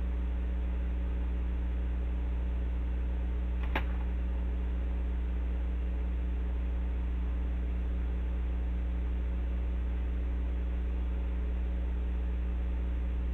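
Steady low electrical hum with a faint buzz, unchanging throughout, with one short click a little under four seconds in.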